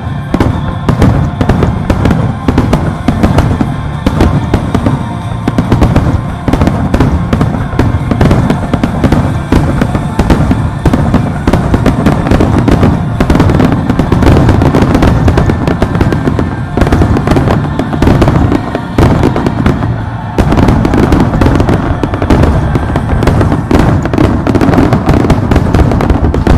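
Aerial fireworks display: a dense, continuous barrage of bursts and crackles, with music playing under it.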